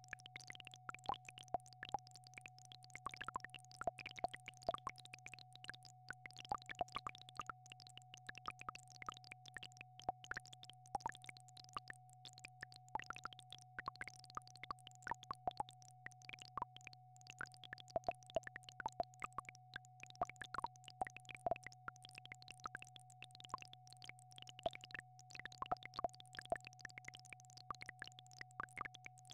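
Synthesized healing-frequency tones: a steady mid-pitched hum over a low drone, with many short plinks and drips scattered irregularly across them.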